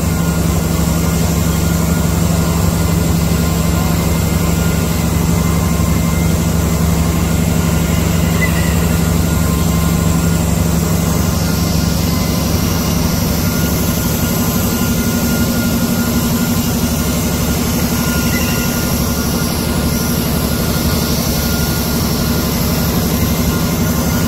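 Paperboard machine running, its rollers and drives making a steady, loud mechanical drone: a strong low hum with a few faint, steady high whines over it.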